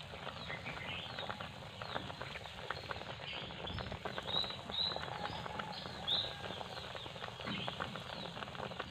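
Pot of shellfish simmering in broth, its bubbles making a continuous fine crackle and popping. Short high chirps of birds come and go over it.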